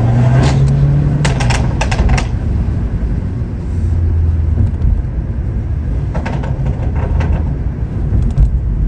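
BMW M140i's B58 3.0-litre turbocharged straight-six, running through a custom exhaust at low revs with a steady drone. Two clusters of sharp exhaust pops and crackles come from about one to two seconds in and again around six to seven seconds in.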